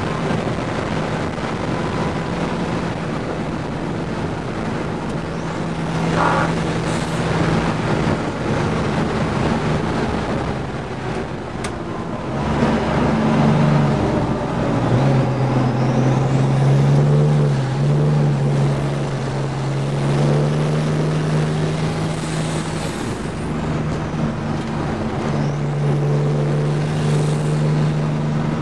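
GMC Syclone's turbocharged 4.3-litre V6 running hard, heard from inside the cab, its pitch stepping up and down as the throttle changes. Steady wind and road noise run underneath.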